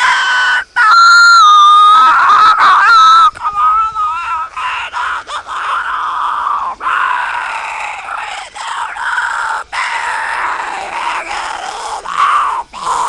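A person's high-pitched, wordless screaming wail. It is loudest and strained from about one to three seconds in, then goes on wavering at a lower level.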